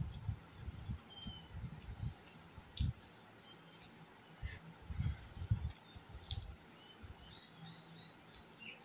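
Close-up eating sounds: chewing and wet mouth clicks and lip smacks in bursts as a man eats rice and chicken by hand. Faint bird chirps in the background.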